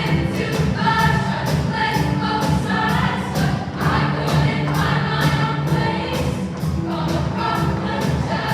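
Choir singing a pop song over an accompaniment with a steady beat.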